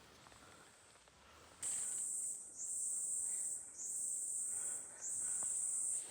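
An insect, such as a cicada or cricket, starts a loud, very high-pitched chirring about one and a half seconds in. It goes on in pulses of about a second each, with brief breaks between them.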